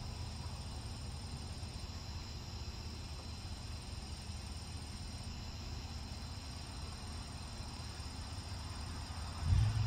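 Steady high chirring of an insect chorus over the low drone of a distant riding lawnmower engine; the low engine rumble swells louder near the end.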